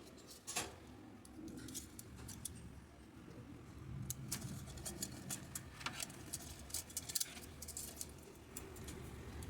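Irregular light clicks and taps of small hard objects being handled, over a low steady background rumble.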